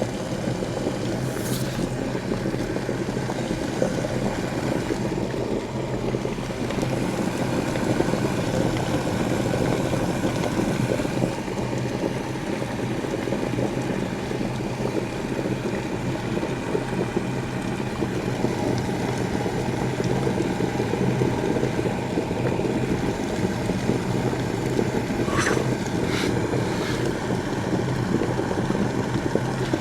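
Electric kettle at a rolling boil: a steady, loud rumbling bubble over a constant low hum, with a few short clicks near the end.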